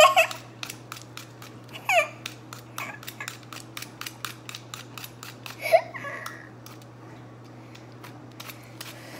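A knife cutting the core out of a peeled apple: a run of small, irregular crisp clicks and cuts. A child laughs and makes short vocal sounds three times, at the start, about two seconds in and near six seconds.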